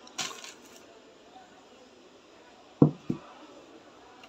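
A metal utensil clinks against a plate with a brief ring, then about three seconds in come two dull knocks in quick succession.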